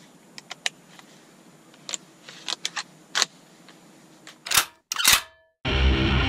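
Sharp mechanical clicks from a scoped hunting rifle being handled and worked at its action, a few scattered light clicks followed by two louder clacks about four and a half and five seconds in. Guitar music starts just before the end.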